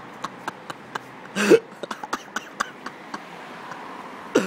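A man's short, gruff vocal sound, falling in pitch, about a second and a half in, and another brief one near the end, among scattered sharp clicks and taps.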